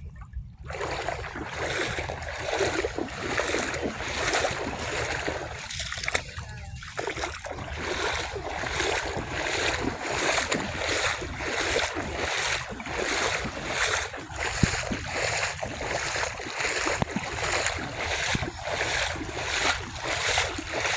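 Footsteps wading through deep floodwater, splashing in a steady rhythm of about two steps a second, starting about a second in.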